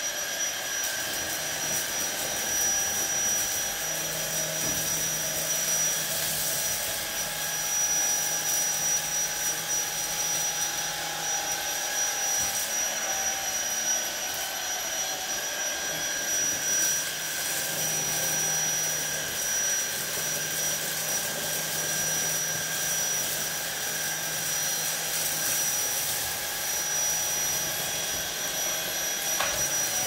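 YOKEKON KCVC11 cordless stick vacuum cleaner running on its first speed: a steady high whine over rushing airflow from its motor and motorised brush head. Scattered clicks and rattles come as dry lentils, rice and cornflakes are sucked up off a tile floor.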